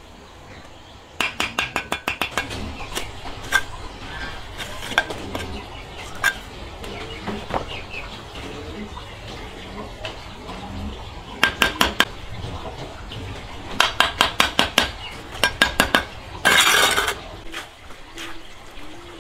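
Kitchenware clattering: runs of quick clinks, several strikes a second, in three bursts, with a short rushing noise near the end.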